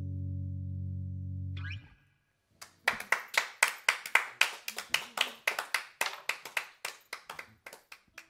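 Final chord of an electric guitar ringing, then damped off sharply about two seconds in. After a brief silence comes sparse clapping, about four claps a second, fading away near the end.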